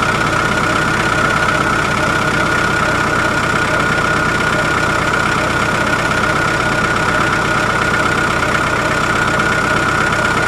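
Construction-machine engine idling steadily: a constant low rumble with a fixed high whine over it.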